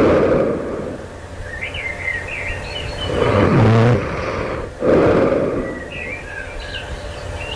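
A person snoring in sleep: a noisy breath about every five seconds, with a low, buzzing snore about three and a half seconds in. Birds chirp faintly in the pauses between breaths.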